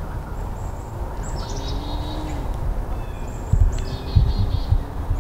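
Small songbirds singing in the woods: two short trills of quickly repeated high notes, about a second apart, with a few low thumps in the second half.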